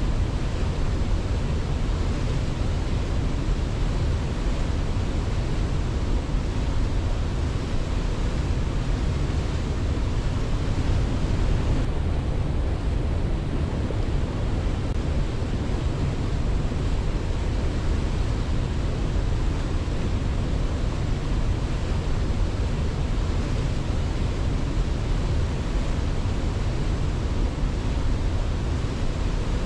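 Waterfall: a steady, unbroken rush of falling water with a deep low rumble and no birdsong on top.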